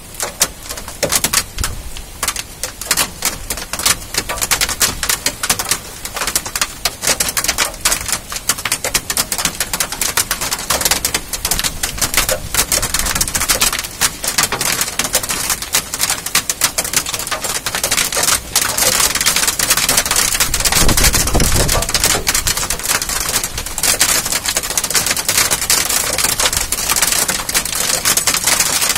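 Hailstorm: hailstones pelting down in a dense, irregular clatter of hard hits over the hiss of rain, growing heavier about two-thirds of the way in.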